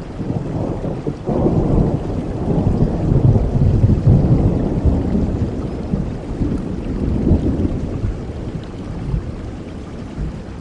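Steady rain falling with a long roll of thunder that swells about a second in, is loudest a few seconds later, then slowly rumbles away.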